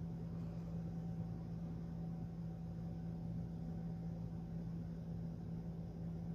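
Steady low hum over even background noise, unchanging throughout: room tone.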